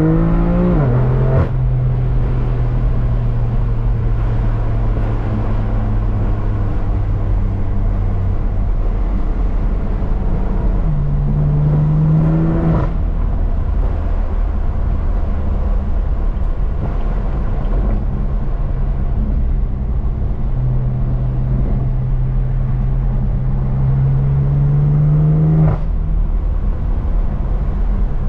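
BMW M3 CS twin-turbo 3.0-litre inline-six running through an AWE SwitchPath exhaust under gentle acceleration, over steady road drone. The engine note climbs slowly, then drops abruptly with a sharp crack at each upshift, three times: about a second in, about halfway, and near the end.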